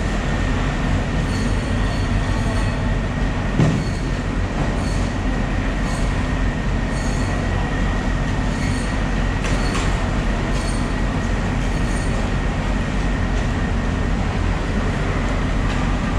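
Steady loud machinery drone with a thin, constant high whine over it, and one short knock about three and a half seconds in.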